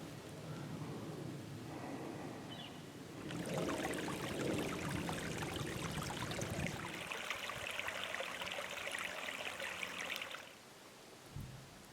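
Steady rush of running water, like a small mountain stream, starting suddenly about three seconds in and cutting off suddenly shortly before the end.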